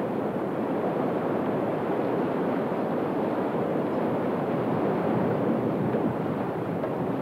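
Fast river rapids rushing steadily.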